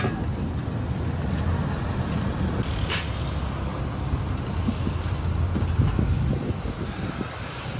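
Steady low rumble of street traffic, with a brief hiss about three seconds in.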